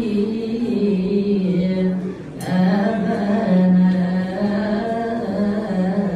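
A man chanting Coptic liturgical melody in long drawn-out notes that step gently up and down, with a brief pause about two and a half seconds in.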